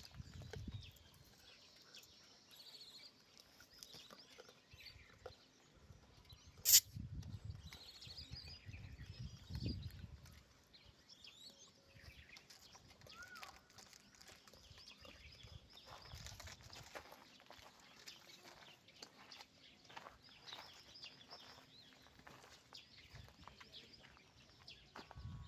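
Faint outdoor ambience with scattered high chirping animal calls, and a single sharp click about seven seconds in.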